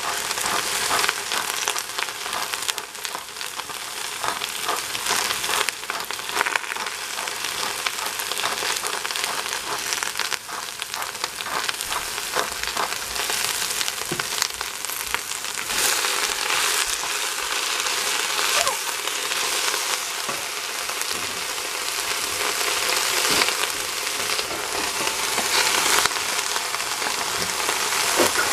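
Chopped cabbage frying in a stainless steel pot: a steady sizzle with many small crackles and pops.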